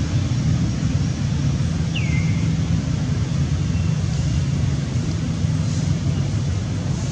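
A steady low rumble throughout, with one brief chirp falling in pitch about two seconds in.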